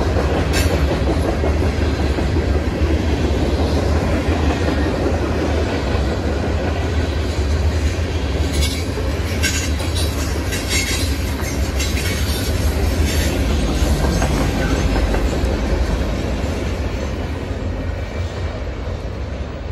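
CN freight train's covered hopper cars rolling past at close range: a steady rumble with wheels clattering over the rail joints and a few short high squeaks in the middle, easing off near the end as the last car goes by.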